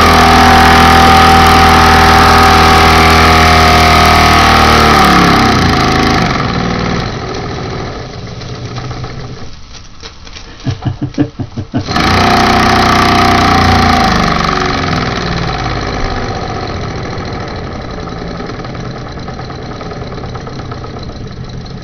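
Three-cylinder Mamod model steam engine running free of its flywheel with a fast, steady buzz of exhaust beats. From about five seconds in it slows until the beats come singly and unevenly for a couple of seconds, a bit jerky at the lowest revs. It then picks up to a steady run again that eases off toward the end.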